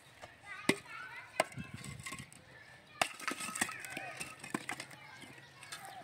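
About half a dozen sharp chopping or knocking strikes at irregular intervals, the loudest about two-thirds of a second in.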